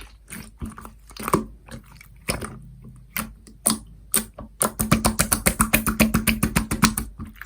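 Slime being pressed and squished by hand, giving sharp wet clicks and pops. About halfway through they come in a fast run of roughly ten clicks a second for a couple of seconds.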